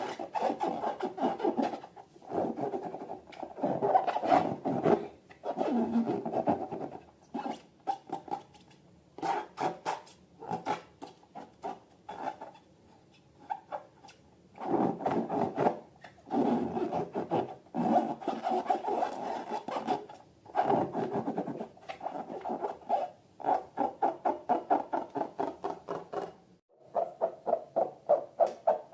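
Balloons and slime being handled, making rubbing, scraping sounds in repeated bursts of a second or two with short pauses between.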